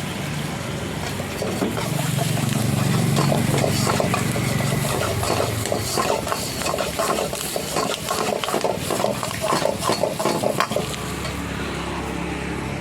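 A metal ladle stirring and scraping in a pan of frying chilli chicken, over a steady sizzle. Through the middle comes a quick run of scrapes and clanks.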